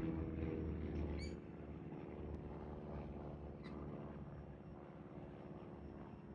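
A passing motor vehicle's engine hum fades out over the first second or so, leaving a low steady rumble. A single short bird chirp comes about a second in.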